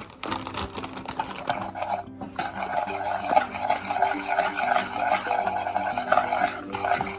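Rhythmic rasping strokes, about three a second, of cheese being grated on a metal grater, over background music.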